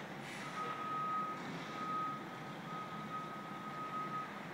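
Truck's reversing alarm beeping: one steady high tone repeated in long beeps, over a low background rumble.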